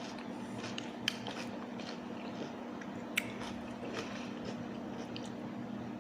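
A person chewing and biting into sauced chicken wings close to the microphone, with a few sharp wet clicks and smacks. A steady low hum runs underneath.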